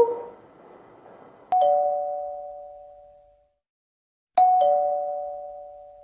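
Two-tone ding-dong chime like a doorbell, sounding twice: a higher note then a lower one, each ringing and fading away over about two seconds.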